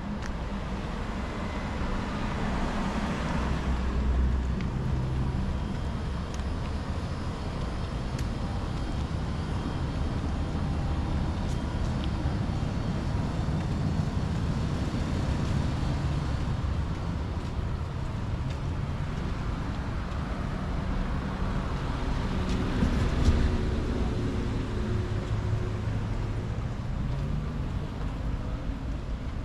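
Street traffic: a steady rumble of cars going by, with two vehicles swelling louder and fading as they pass, one a few seconds in and one about three quarters of the way through.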